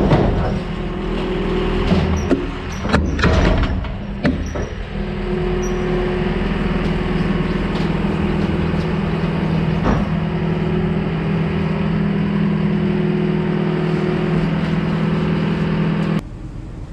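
Manitou skid steer's engine running steadily under load as it is driven onto a trailer, with several metal clanks and thuds in the first few seconds and another about ten seconds in. The engine shuts off about a second before the end.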